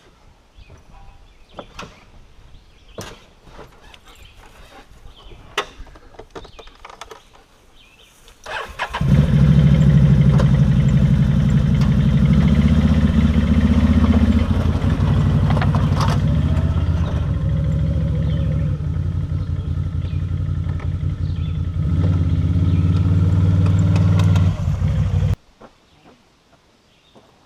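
A few light clicks and knocks, then about eight seconds in a vehicle engine starts and runs loudly, its pitch stepping up and down a few times. It cuts off abruptly near the end.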